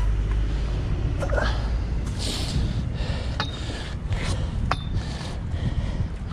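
Low rumble of wind buffeting the microphone, with a few sharp metallic clicks and clanks as strong magnets are handled on a steel shopping trolley just pulled from the canal.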